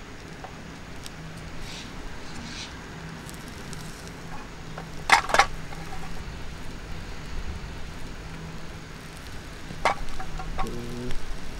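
Peppers and mushrooms sizzling on a hot stone slab, with a low crackle and two sharp cracks about five seconds in and another near ten seconds.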